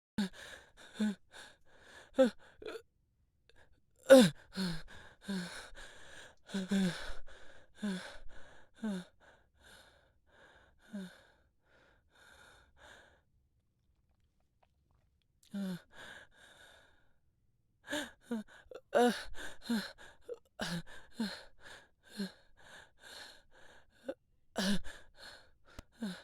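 A person breathing heavily and out of breath, as after running: ragged gasps and sighing breaths, many with a short voiced catch. They come in uneven clusters, with a pause of about two seconds around the middle.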